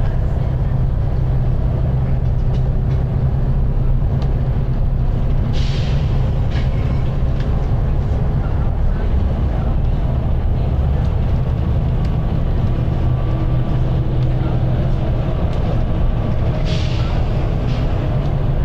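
Volvo B9TL double-decker bus's nine-litre six-cylinder diesel running steadily under way, heard from the upper deck. Two short hisses of air from the bus's air system break in, about five seconds in and again near the end.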